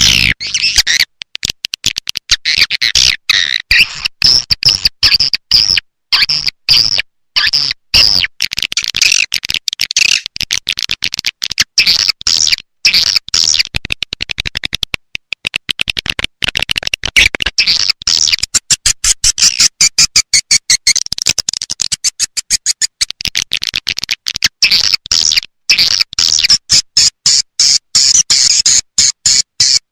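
Swiftlet call lure recording: rapid, dense, high-pitched twittering chirps, chopped into bursts by many brief silent gaps. It is the call sound played in swiftlet farming to draw swiftlets into a nesting house.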